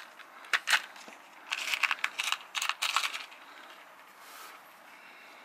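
Small stones in a plastic pot clicking and rattling as they are handled: two sharp clicks, then about a second and a half of rattling clicks.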